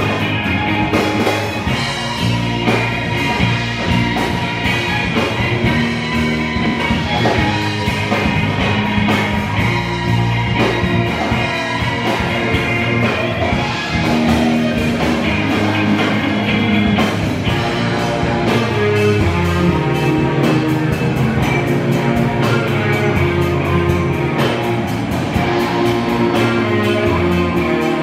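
Live rock band playing: electric guitars and bass over a steady beat, with no vocals transcribed.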